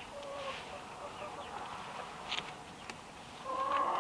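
Chickens clucking: faint calls early on, then a loud run of quick, rapid clucks starting near the end.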